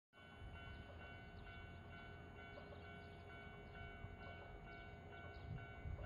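Japanese railway level-crossing alarm bell ringing faintly in a steady repeated ding-ding, the warning that a train is approaching. A low rumble sits beneath it.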